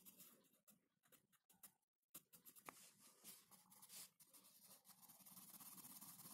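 Near silence: faint room hiss with a few soft ticks and light rustles.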